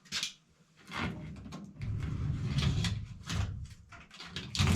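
Handling noise from work on taped sheet-metal ductwork: irregular rustling and scraping with a low rumble, a sharp click just after the start and a louder knock near the end.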